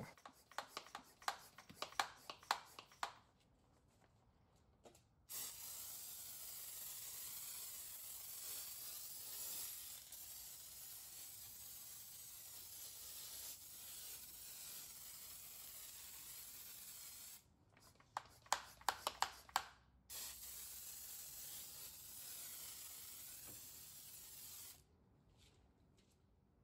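Hand-held pump-up foam sprayer (Kwazar Venus Super Foamer) spraying foam in a long, steady hiss. It is broken for a couple of seconds by a quick run of short clicks and then sprays again. A similar run of clicks opens the sequence, and the spraying cuts off a couple of seconds before the end.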